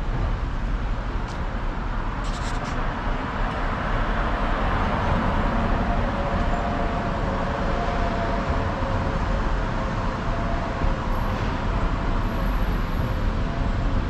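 Street traffic noise: a motor vehicle passing, its sound swelling through the middle over steady road noise.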